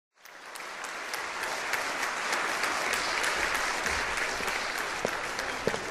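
Applause: many hands clapping, fading in over the first second and then going on steadily.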